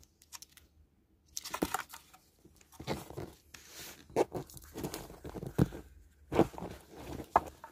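Pet ferret scuffling and rustling at close range during play: irregular bursts of scratchy noise and sharp clicks, starting about a second in.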